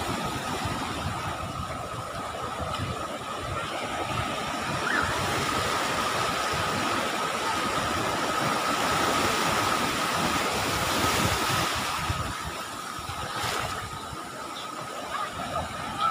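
Sea surf washing in over a shallow sandy beach, a steady rushing wash that swells in the middle and eases again, with low gusts of wind on the microphone. A thin steady high tone runs faintly behind it.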